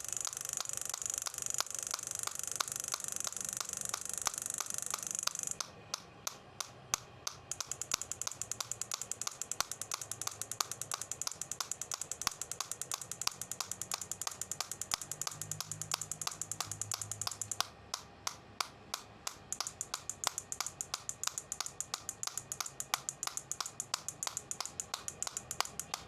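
Rapid, even clicking, several clicks a second, over a high hiss that cuts out twice for about two seconds.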